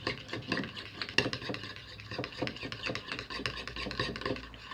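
A spoon scraping and clicking against a bowl in a quick, uneven run of rasps while a glue-based slime mixture is stirred.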